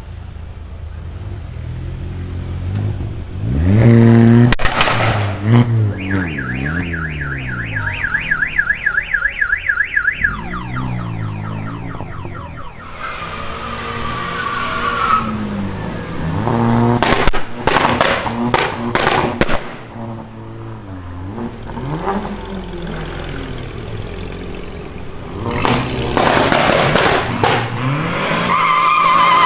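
Tuned cars revving and pulling away one after another, their engine notes rising and falling. A rapidly warbling siren-like tone sounds for about four seconds early on, and a quick string of loud exhaust bangs comes a little past halfway.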